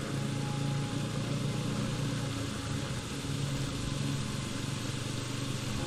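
Bajaj Pulsar NS200's single-cylinder engine running steadily at low revs.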